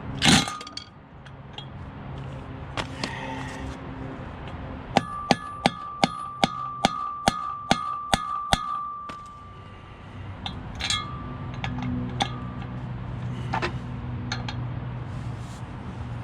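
Hammer blows driving a bolt extractor socket onto a rounded-off 12-point drive shaft bolt: one hard strike, then a quick run of about a dozen ringing metal strikes, three to four a second, and a few more single blows near the end.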